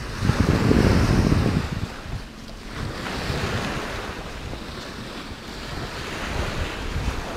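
Small waves washing onto a sandy shore, with wind buffeting the microphone, loudest for about the first second and a half.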